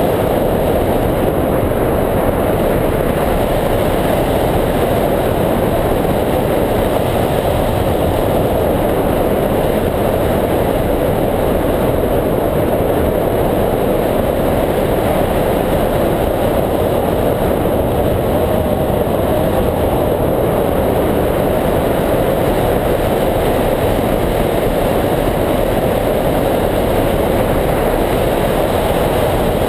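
Steady rush of wind on a microphone mounted on a hang glider's wing in flight: a loud, even noise that never lets up.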